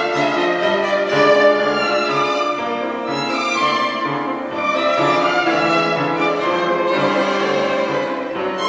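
Youth violin ensemble playing together, bowed melody lines in held and moving notes.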